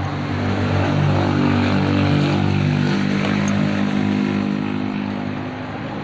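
A motor engine passing by, its low hum swelling to its loudest about two seconds in and then fading away.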